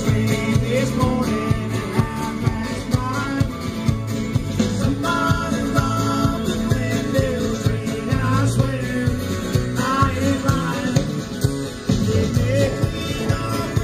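Live band playing a country-rock song with a steady beat.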